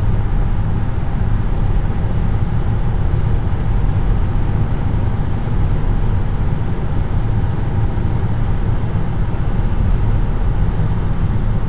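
Road noise inside a car cruising at highway speed: a steady rumble of tyres on pavement and the running engine, heaviest in the low end.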